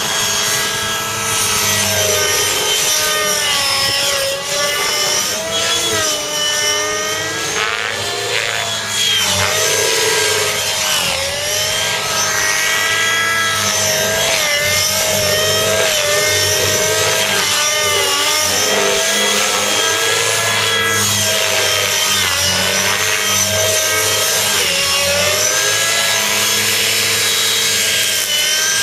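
Radio-controlled helicopter with a Gaui 37SZH nitro glow engine and muffler, running hard at high revs with rotor-blade noise, its pitch rising and falling over and over as it is thrown through 3D manoeuvres.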